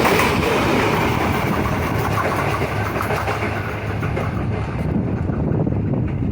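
An express train running past on the rails, its wheels and carriages making a steady rolling noise. The higher hiss drops away about four seconds in.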